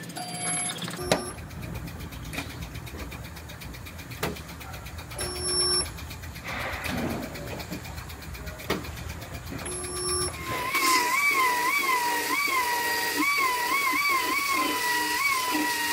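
Resistance spot welder buzzing through three welds, each lasting about half a second to a second, with sharp clicks between them. From about eleven seconds in, a belt file sander grinding down MIG-welded seams runs with a continuous whistling whine whose pitch wavers up and down as it is pressed against the metal.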